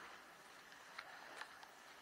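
Near silence: faint, steady outdoor hiss, with a few soft clicks about a second in.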